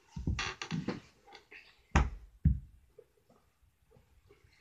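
Objects being handled on a tabletop: a short run of quick scuffing and rattling noises in the first second, then two sharp knocks about half a second apart.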